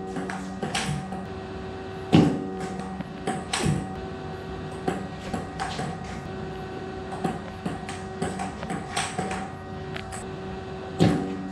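Table tennis ball clicking off the paddles and the table during rallies, in quick irregular strokes, with two louder thumps, about two seconds in and near the end, over a steady hum.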